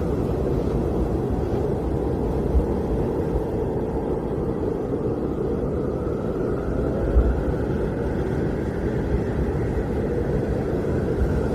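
Blizzard wind blowing steadily, a low rushing rumble with two brief stronger gusts thudding low, about two and a half and seven seconds in.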